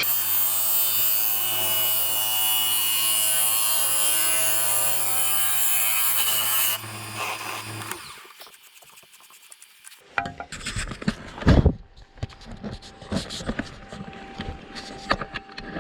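Wood lathe running while a turning tool cuts the thin wall of a spinning poplar lampshade: a steady motor hum under the hiss of the cut. The cutting stops about seven seconds in and the motor hum stops a second later, followed by scattered knocks and clicks of handling with one louder thump.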